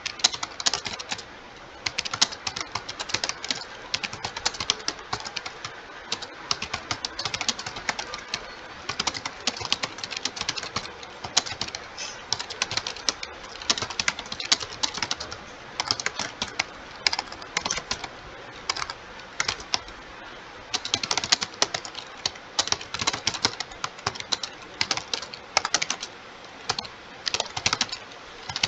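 Fast, continuous typing on a computer keyboard: a dense stream of key clicks at about 60 words a minute, broken by a few brief pauses.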